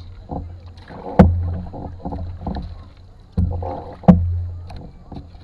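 Canoe paddle knocking against the canoe's hull twice, each a sharp knock followed by a hollow low boom from the hull, with splashes and water sloshing from the paddle strokes in between.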